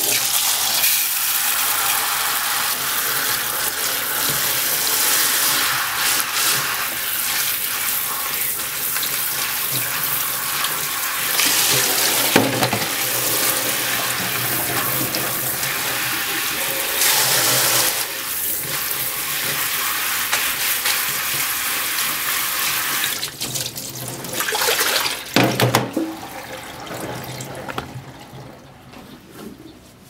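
Kitchen tap running in a steady stream into a stainless steel sink, splashing over bunashimeji mushrooms in a plastic colander as they are rinsed, with a couple of brief knocks. The water is turned off near the end.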